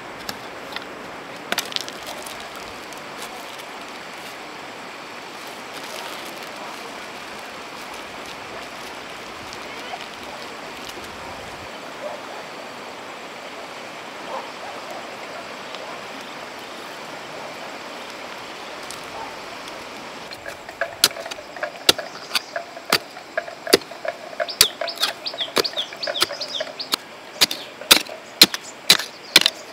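Steady outdoor background hiss, then, from about two-thirds of the way through, a small wooden-handled spade chopping into stony soil: sharp, irregular clacks several times a second as the blade hits earth and stones.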